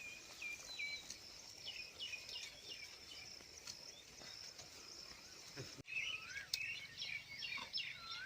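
Birds chirping and whistling, several short calls overlapping. The calls get louder and busier after about six seconds.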